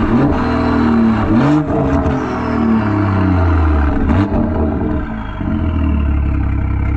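Exhaust of a BMW 340i's turbocharged B58 inline-six running a catless downpipe and M Performance exhaust, heard up close at the tailpipe while driving. The engine note swings down and back up in pitch a few times with a few short sharp cracks, then settles into a steady low drone.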